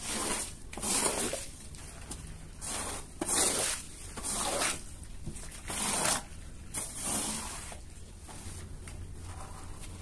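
Long-handled rubber floor squeegee drawn across a wet, foam-soaked rug, pushing off foam and dirty water in a series of rasping swishes, about one stroke a second.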